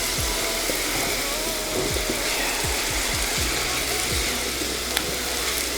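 Food sizzling in hot oil in a frying pan, a steady hiss, with scattered short knocks from stirring.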